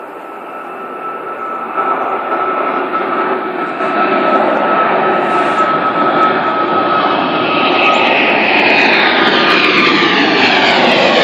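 Jet airliner's engines growing steadily louder as it approaches. A steady high whine at first gives way, after about eight seconds, to a shifting whine of several sliding tones over the roar.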